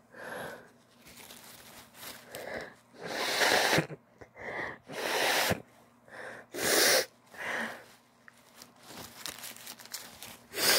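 A woman's wet sneezes in a fit, about four loud ones, with quieter gasping in-breaths before them and one last sneeze near the end. They are allergy sneezes.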